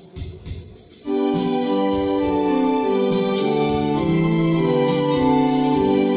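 Two-manual electronic home organ playing a hymn tune. After a few drum hits, sustained chords come in about a second in over a light, steady percussion beat.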